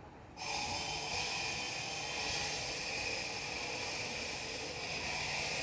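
Walk-behind concrete cutter with a 10 hp three-phase electric motor and a 14-inch blade switching on about half a second in, then running with a steady high whine over a hiss.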